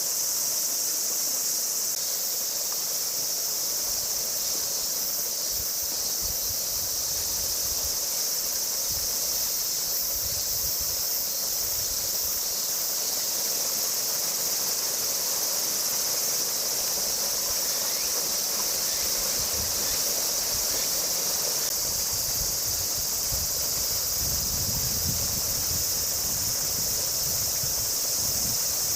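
Steady summer chorus of cicadas: a continuous high-pitched sizzling drone that never lets up. About 24 s in, a brief low rumble comes up underneath.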